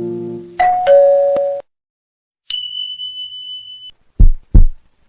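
Intro sound effects: the tail of harp music dies away, then two chime notes ring out like a ding-dong. A single steady high beep follows, and near the end a pair of low heartbeat-like thumps.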